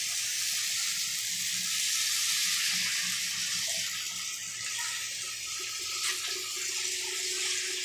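Masala frying in a hot aluminium kadhai on a gas stove, sizzling steadily, while milk is poured into the pan from a packet.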